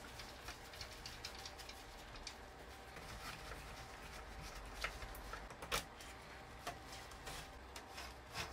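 Faint, irregular clicks and scrapes of a screwdriver working against the metal and plastic parts of a cassette deck's mechanism, with a few sharper clicks around the middle.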